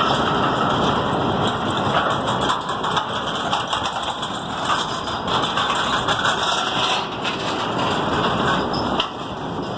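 Motorcycle running along a dirt track, with a steady rush of wind on the microphone.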